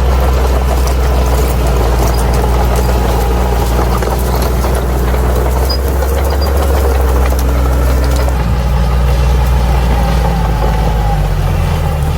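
Bulldozer's diesel engine running steadily under work. Its pitch shifts about two-thirds of the way through and drops briefly near the end.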